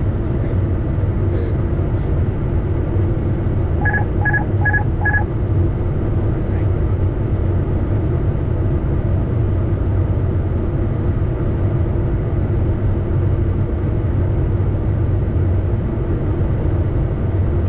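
Steady rumble of engine and airflow noise on the flight deck of a Bombardier Challenger 350 twin-turbofan business jet, with a thin high whine throughout. About four seconds in, four short electronic beeps sound in quick succession.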